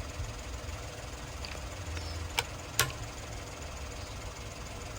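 Two sharp metallic clicks about half a second apart, from a hand wrench on the wheel bolts as they are checked for tightness. A steady low rumble, like a running engine, sits underneath.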